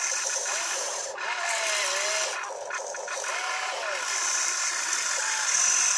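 Radio-controlled excavator's small electric motors and gearboxes whining as the boom and bucket move, the pitch gliding up and down, over a steady high hiss.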